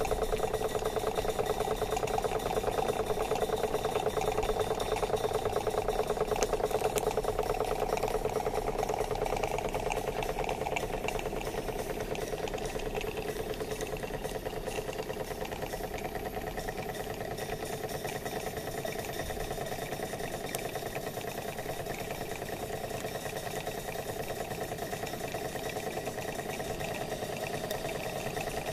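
Small live-steam model traction engine running stationary: a rapid, even chuffing of exhaust beats over a steady hiss of steam. It becomes a little quieter about eleven seconds in.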